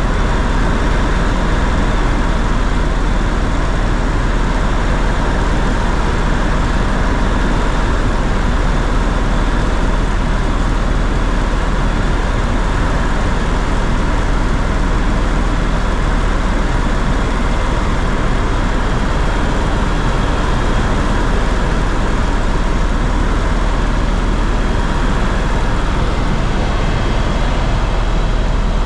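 Engine and airflow noise heard inside the cabin of a sightseeing tour aircraft in cruise: a loud, unbroken drone with a strong low hum and faint steady tones above it.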